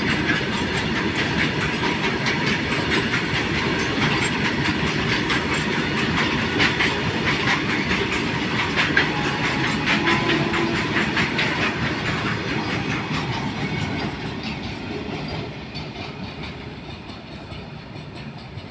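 Freight train of open-top wagons rolling past close by, its wheels clattering and clicking on the rails. The brake van goes by about ten seconds in, and the sound then fades as the train moves away.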